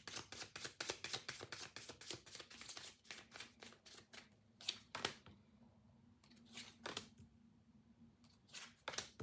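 A deck of tarot cards being shuffled, a fast run of flicking clicks for about three seconds that thins out, then a few single card snaps as cards are pulled and laid down.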